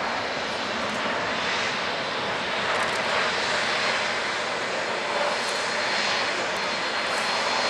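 Boeing 787-8 Dreamliner's jet engines at take-off power during the take-off roll and lift-off: a steady rushing noise with a faint high whine.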